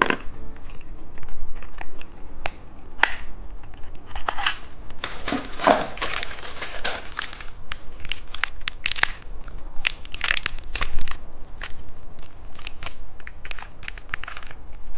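Plastic candy packaging crinkling and being torn open by hand, in irregular bursts of crackles, loudest a few seconds in and again around the middle.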